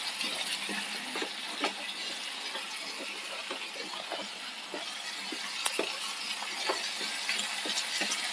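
Potato and green bean stir-fry sizzling in a pan with a little water just added, stirred with a wooden spatula that scrapes and knocks against the pan at irregular intervals, one sharper knock about two-thirds of the way through.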